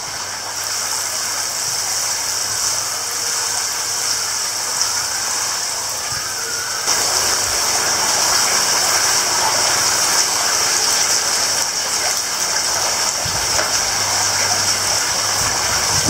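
Water sprinkling from a watering can's rose onto a pond's surface: a steady spattering hiss that grows louder about seven seconds in, with a low steady hum underneath.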